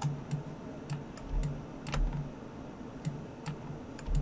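Computer mouse and keyboard clicking irregularly, about eight sharp clicks over four seconds, with a few soft low thumps in between.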